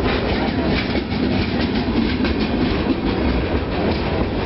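Freight train of rock-laden gondola cars rolling past, steel wheels clicking over the rail joints over a steady rumble.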